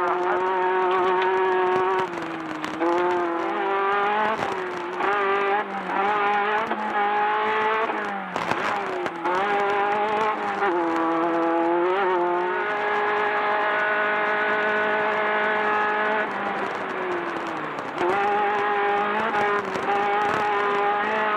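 Desert off-road race car's engine heard from inside the car at race pace, its pitch rising and falling every second or two as the throttle goes on and off. About halfway through it holds one steady high pitch for a few seconds, drops briefly, then climbs again.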